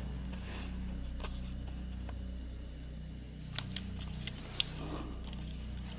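Quiet room tone: a steady low hum with a faint high whine, and a few light clicks about halfway through as the camera is moved.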